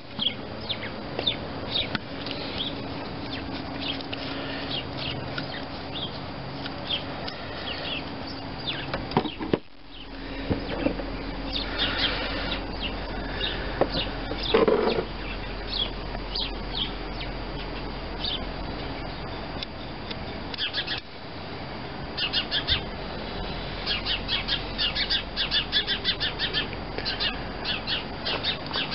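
A bird chirping again and again, with quick runs of sharp chirps in the last several seconds.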